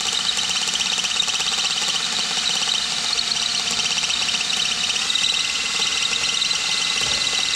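Handheld power tool running steadily, a rapid high-pitched rattle over a motor whine, while it backs out a bolt on the steering column.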